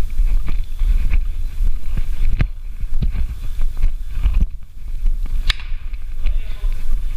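Rumbling buffeting on the microphone, likely wind or handling, with four sharp cracks scattered through; the loudest comes about five and a half seconds in.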